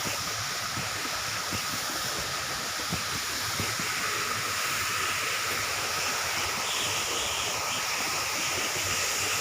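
Waterfall's water pouring and splashing, a steady rushing hiss.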